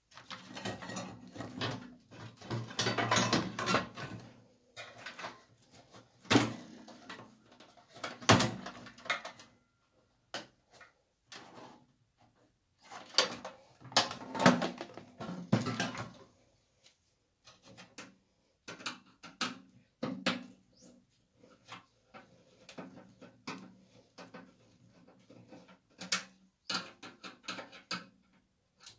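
Microwave oven being dismantled with a screwdriver: plastic latch parts and the sheet-metal panel clicking, knocking and rattling as they are prised loose, in irregular bursts, loudest a few seconds in, around eight seconds and about halfway through.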